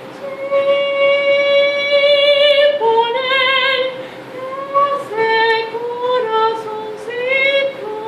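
A woman singing unaccompanied, holding long wavering notes: one long held note from about half a second in, then a run of shorter notes sliding up and down.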